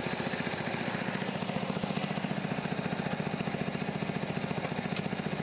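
Small engine of a homemade mini-tractor running steadily with an even, rapid beat, driving the car gearbox through a belt, with the gearbox in fourth gear.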